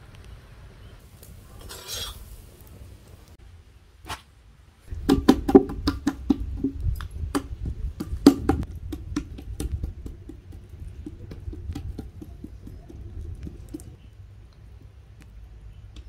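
Hands patting and slapping bajra dhapate (thalipeeth) dough flat on a wet cloth. It is a quick, uneven run of soft thumps and slaps that starts about five seconds in, is loudest over the next few seconds and tapers off toward the end.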